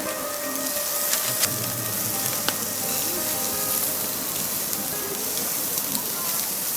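Lamb chops sizzling on a grill over a wood fire: a steady hiss with occasional sharp pops.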